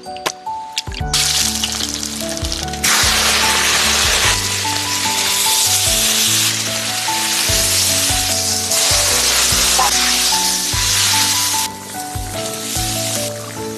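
Small fish frying in hot oil: a loud, dense sizzle that starts about a second in, jumps in level several times, and drops back near the end, over background music.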